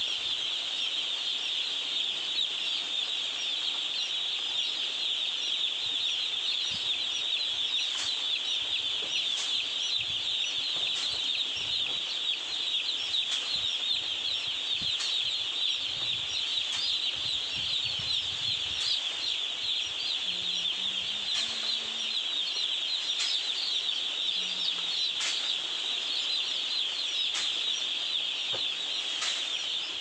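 A shed full of day-old chicks peeping continuously, hundreds of high cheeps overlapping into one steady, dense chorus.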